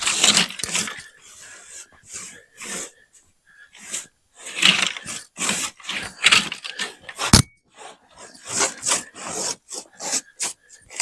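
Soft-bristled broom sweeping snow off a truck's body in a run of short, uneven brushing strokes, with a sharp knock about seven seconds in.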